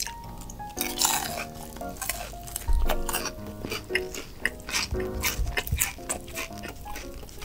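Crunchy bites and chewing of honey-glazed fried chicken, with several sharp crunches, the loudest about three seconds in. Light background music plays underneath.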